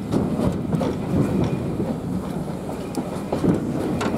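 Passenger coach of a steam-hauled heritage train running along the line: a steady low rumble from the wheels, with scattered short clicks and knocks.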